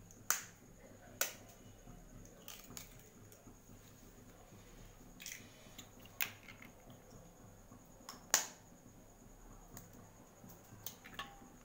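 Eggs tapped against the rim of a stainless steel plate and cracked open: a handful of sharp separate taps a second or more apart, the loudest about eight seconds in.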